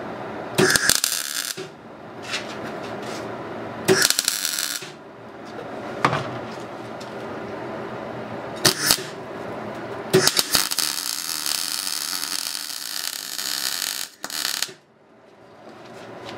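MIG welder's arc on sheet steel, tacking a fabricated wheel chock: four short bursts of a second or less, then one longer weld of about four and a half seconds near the end, over a steady low hum.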